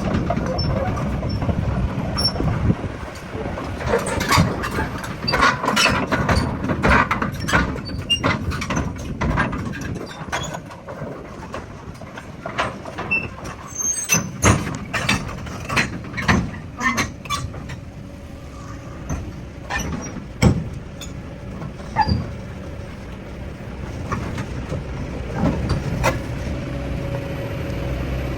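Heavy machinery running with a steady low engine rumble, and many sharp metallic clanks and knocks, thickest from about four to seventeen seconds in.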